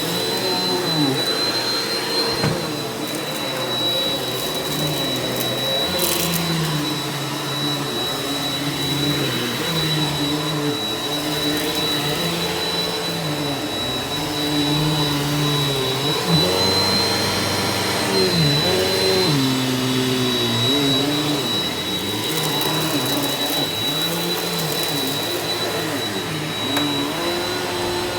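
Eureka Power Speed upright vacuum cleaner running on carpet. A steady high whine sits over a lower hum that dips and rises in pitch every second or two as the load on it changes.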